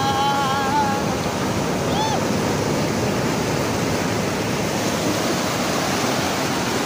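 Ocean surf breaking and washing up the shore: a steady rush of waves.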